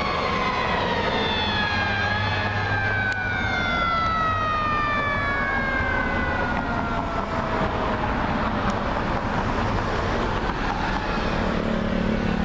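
Fire engine's Federal Q mechanical siren winding down: one long tone that slowly falls in pitch over several seconds, heard over steady traffic noise. A fainter siren tone starts rising again near the end.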